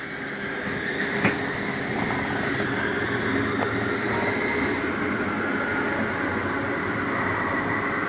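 RV living-room slide-out retracting: the electric slide motor and mechanism run with a steady whir and rumble that builds over the first couple of seconds, with a faint click about a second in.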